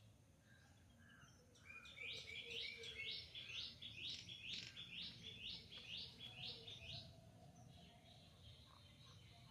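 A bird singing faintly: a run of about a dozen quick, high notes, each sliding down in pitch, a little over two a second, lasting about five seconds before it stops.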